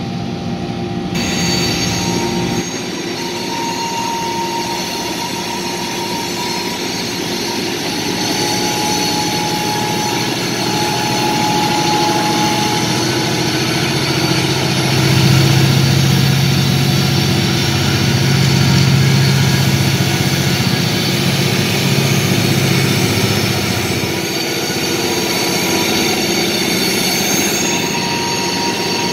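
Diesel switcher locomotives running and moving on the rails, with faint thin steel-wheel squeal at times in the first half. About halfway through, the engines' low drone grows louder for several seconds, then eases.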